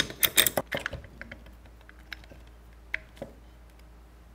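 Metal clicks and clatter of a RIDGID flaring tool being loosened and taken off a flared copper tube: the clamp bar and tool parts knock together. A quick run of clicks in the first second, then a few single clicks.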